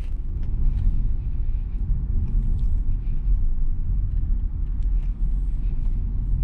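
Steady low rumble of engine and tyre noise heard inside the cabin of a 2022 Mitsubishi Xpander Ultimate CVT on the move, its 1.5-litre four-cylinder running under a continuously variable transmission in D. A few faint light ticks sit on top.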